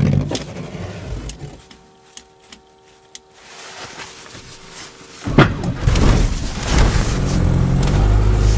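Isuzu Trooper engine being shut off, then a quiet stretch with a few clicks and a brief steady tone. About five seconds in the engine is started with a sudden loud crank and catch, then keeps running steadily. With no working clutch the engine has to be stopped and restarted to get moving.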